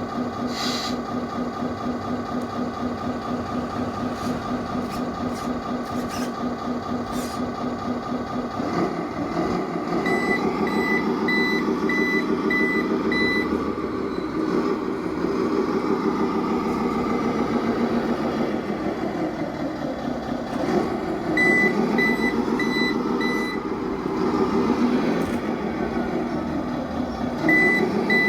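An RC truck sound module (OB1 3.1+ sound card) playing a simulated truck diesel engine through a small speaker. The engine idles steadily, then from about 9 s swells up and down in pitch several times. Three runs of reversing beeps come over it: about 10 s in, around 22 s, and again near the end.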